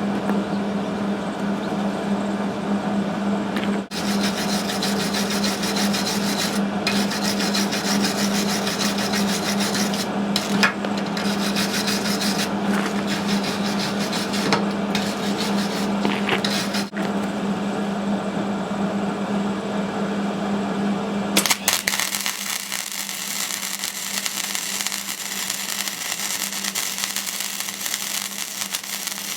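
MIG welder arc crackling and sizzling in long runs of bead, with a steady low hum and a few short breaks between runs. About twenty seconds in, the hum drops out and the crackle turns thinner and higher.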